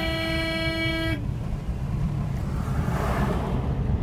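A car horn holds one steady tone and cuts off about a second in, over the steady low rumble of road and engine noise inside a moving car. About three seconds in, a rush of noise swells as another vehicle passes close alongside.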